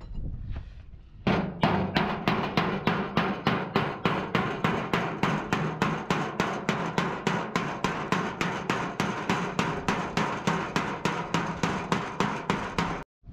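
Rapid, even hammer blows on the sheet steel of a Tata truck cab panel, about four a second, each one ringing, as the accident-dented panel is beaten back into shape. The hammering starts about a second in and cuts off abruptly near the end.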